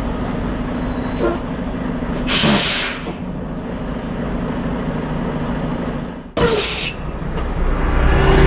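Semi-truck's diesel engine running at low speed, with two short hisses of air from the air brakes, about two and a half and six and a half seconds in.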